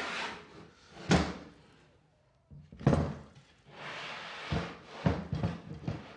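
Plywood crosscut sled handled on the table saw: a few wooden knocks with rough sliding scrapes between them.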